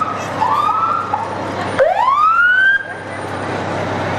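Fire engine siren whooping as the truck passes: two short rising chirps, then a longer whoop that climbs in pitch about two seconds in and cuts off sharply.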